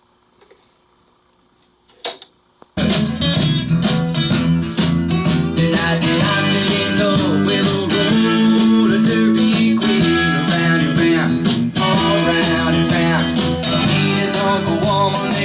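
Vinyl record playing on a Technics SL-B300 turntable: a quiet gap between tracks, a brief thump about two seconds in, then the next track starts with guitar-led music.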